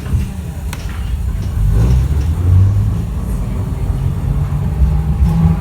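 Low rumble of a TECO streetcar running on its track, with a single click under a second in; the rumble swells about two seconds in.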